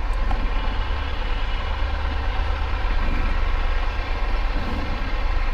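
Triumph Tiger motorcycle's three-cylinder engine idling steadily with a low rumble.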